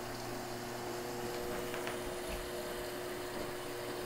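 Front-loading washing machine running: a faint steady hum with a couple of constant tones, and a few faint ticks in the middle.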